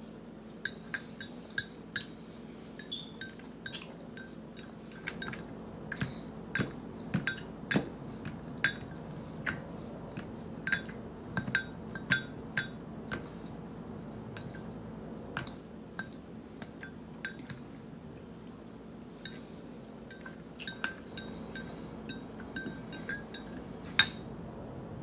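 Metal fork clinking and scraping against ceramic bowls while eating, irregular sharp ticks one or two a second, some with a brief ring. The ticks thin out for a few seconds in the middle, and the loudest clink comes near the end.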